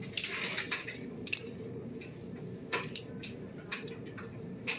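Butterfly knife (balisong) being flipped: its handles and blade clack against each other in a handful of sharp metallic clicks at irregular intervals, with a light jingle.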